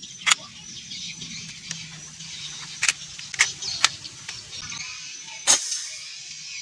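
Five sharp clicks at uneven intervals, the loudest about five and a half seconds in, over a faint steady low hum.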